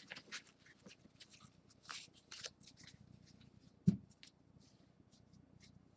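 Football trading cards being flipped and slid through the hands one after another: a run of quick, light papery swishes and clicks, with one soft bump about four seconds in.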